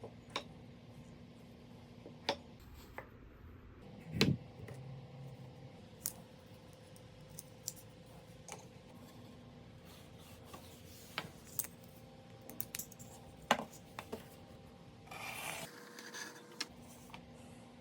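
Scattered light clicks and taps of small tools and wooden parts being handled at a workbench, with a heavier knock about four seconds in and a short rubbing sound near the end, over a faint steady hum.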